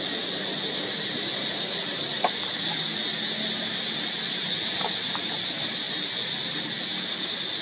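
Steady high-pitched drone of insects, with a brief faint chirp about two seconds in.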